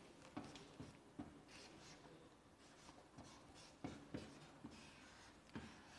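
Faint writing on a board: short scratchy strokes and a few light taps.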